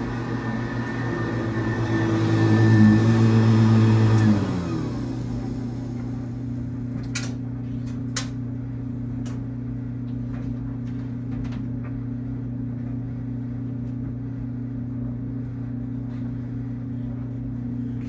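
1976 Hoover U4317 upright vacuum cleaner running with a steady motor hum and whine. About four seconds in its pitch sags slightly and it drops in level, then runs on steadily at the lower level, with a few light knocks.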